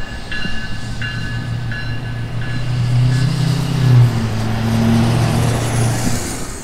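Diesel locomotive approaching and passing close: its engine drone builds to a peak about four seconds in, with wheel and rail noise, then eases off near the end. Early on its bell rings roughly every 0.7 seconds, fading out within the first few seconds.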